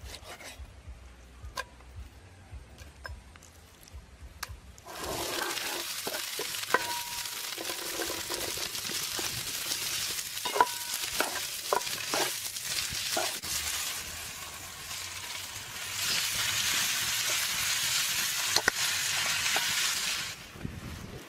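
Red chillies and a minced paste sizzling in hot oil in a frying pan, stirred with a spatula that knocks and scrapes against the pan. After a few quieter seconds with light clicks, the sizzle starts about five seconds in, grows louder near the end, then stops just before it.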